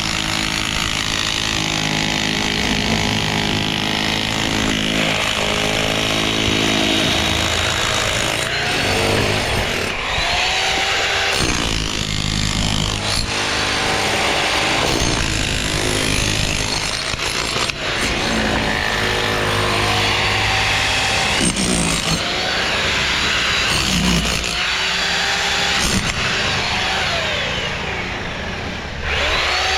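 A power saw running and cutting, its pitch dropping and climbing back again and again as it works.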